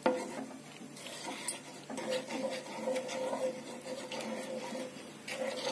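Wooden spatula stirring milk in a non-stick pan while milk powder is sprinkled in, making a repeated soft scraping and swishing.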